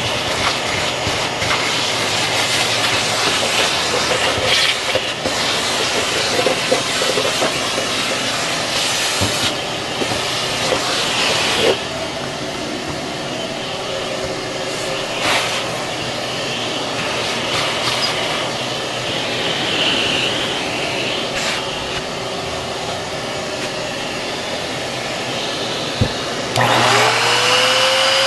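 Shop vacuum running steadily, its hose nozzle sucking foam and resin dust out of a routed fin-box slot, with scattered ticks and crackles as debris goes up the hose. About a second and a half before the end an electric trim router starts up with a quickly rising whine that then holds steady.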